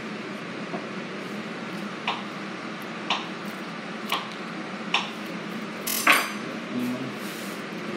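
Slime being kneaded and pulled apart by hand, with a short sharp click or pop about once a second; the loudest comes about six seconds in.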